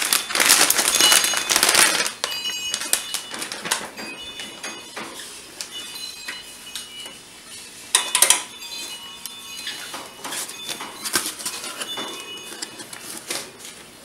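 Metallized anti-static bag crinkling and rustling as a motherboard is slid out of it. The rustle is loudest in the first two seconds, with another sharp burst about eight seconds in and lighter crackles and clicks of handling in between.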